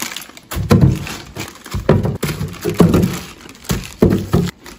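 Heavy plastic bags of frozen tomatoes set down one after another into a stainless steel sink, a series of dull thuds against the steel with plastic bags crinkling.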